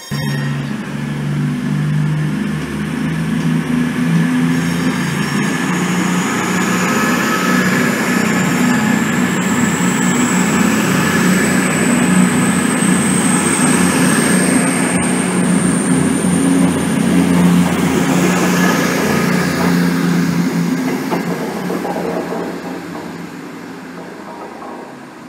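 CrossCountry diesel train running past the platform: engine drone and wheel rumble, with a high whine slowly rising in pitch through the middle. It fades away near the end.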